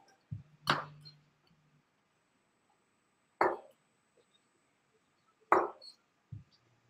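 Three sharp knocks a couple of seconds apart. The last is a steel-tip dart thudding into a bristle dartboard.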